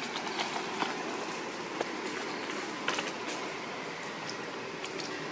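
Steady outdoor background hiss with a few scattered short clicks, the most distinct about one second and three seconds in.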